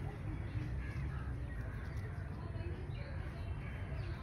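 Birds calling now and then, short chirps and caws, over a steady low rumble.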